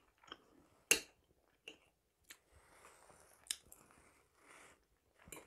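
Close-up mouth sounds of a person chewing marinated herring and onion: soft wet chewing with scattered sharp clicks, the loudest about a second in.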